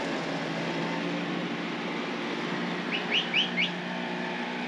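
A Polaris utility vehicle's engine running steadily as it drives away. About three seconds in, a bird gives four quick rising chirps.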